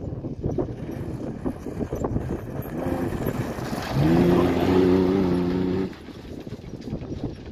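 Ford Ranger prerunner truck driving past on a dirt track. Its engine note builds, rises in pitch about four seconds in and is loudest for about two seconds as the truck passes, then drops away sharply as it drives off.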